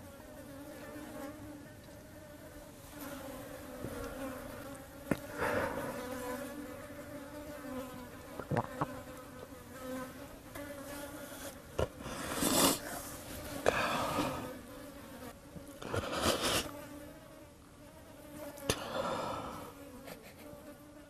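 Flies buzzing in a steady drone around a dead rhino. Several louder bursts of a man's sobbing breaths break through.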